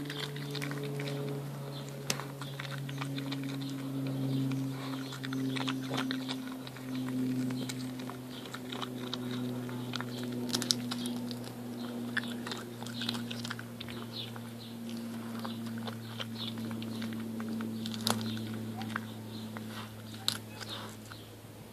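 Border terrier biting and chewing open fresh pea pods, a run of crisp crunches and snaps, over a steady low hum.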